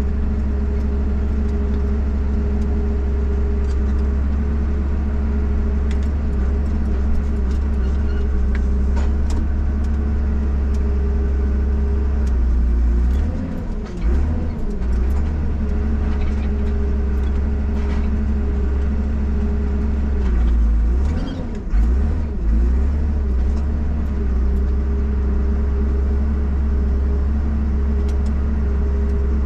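Valmet 860 forwarder's diesel engine running steadily, heard from inside the cab while the log crane is worked. The engine note sags and wavers twice, near the middle and again about two-thirds through, as the crane takes load. Scattered clicks and knocks sound over the drone.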